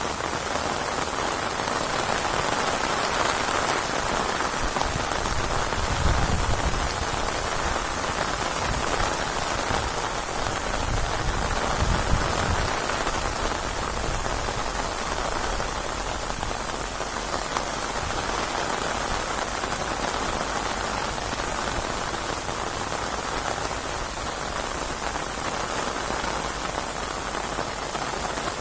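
Rain falling steadily, an even hiss, with two brief low rumbles swelling up about six and twelve seconds in.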